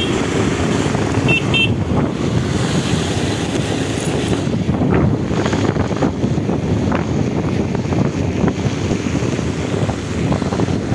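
Steady low road noise from on board a vehicle moving along a rain-wet, flooded street: engine and tyres on wet road. Two short, high beeps sound in the first two seconds.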